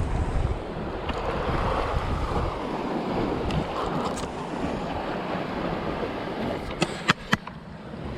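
Sea surging and washing against rocks, with wind buffeting the microphone, and a few sharp clicks about seven seconds in.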